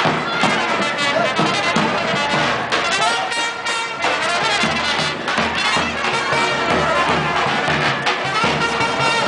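Greek folk dance music playing loudly and continuously.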